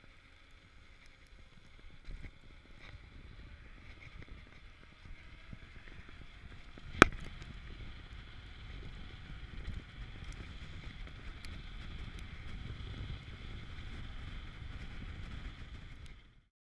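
Wind rush and rolling noise from a mountain bike descending a paved road, as picked up by a camera on the rider, building up as the bike gathers speed. One sharp knock about seven seconds in, then the sound cuts off just before the end.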